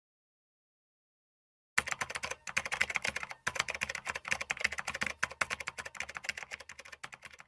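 Rapid, irregular clicking like fast typing on a computer keyboard, part of the sound effects of an animated logo intro; it starts sharply about two seconds in, after silence.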